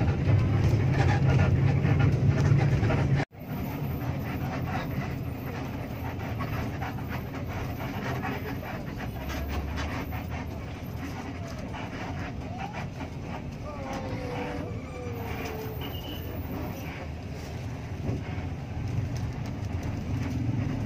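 Bus cabin noise while crawling through traffic: the steady low rumble of the bus's engine and running gear. It is louder for the first three seconds, cuts out abruptly, and resumes at a lower level.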